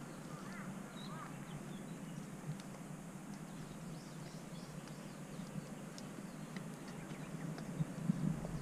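Faint bird calls, a few short chirps in the first second or so, over steady low outdoor background noise, with a couple of soft bumps near the end.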